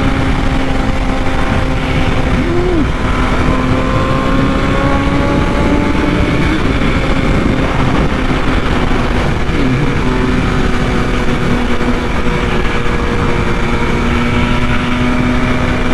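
BMW S1000RR's inline-four engine running at a steady cruising speed, under heavy wind rush on the microphone.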